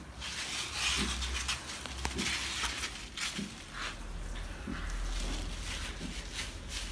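A hand-pump pressure sprayer hisses in short, uneven spurts as medicated solution is sprayed onto a dog's coat, with gloved hands rustling and rubbing through the wet fur.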